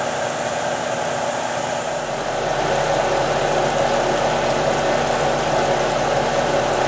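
UHF vibrating gold concentrator table running: a steady mechanical hum with a rush of water washing across its deck. The sound gets a little louder about two seconds in.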